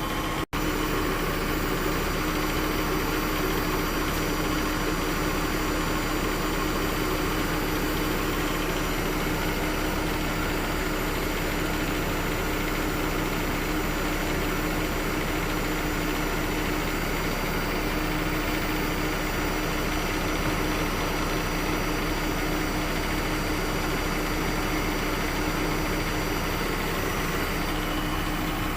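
2015 Jeep Grand Cherokee engine idling steadily with a constant hum, during an air-conditioning refrigerant recharge. The sound cuts out for an instant about half a second in, then carries on unchanged.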